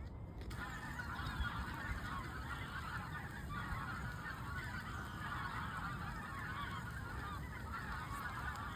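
A flock of geese honking, many calls overlapping in a continuous chorus that starts about half a second in.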